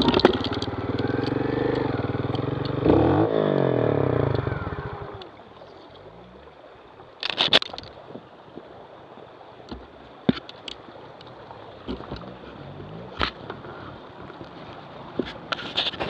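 Trials motorcycle engine running and revving hard as the bike climbs a rocky stream, then dropping away suddenly about five seconds in. After that, water running over rocks can be heard under a faint engine note, with scattered sharp knocks and clatters, the loudest cluster a couple of seconds after the engine drops away.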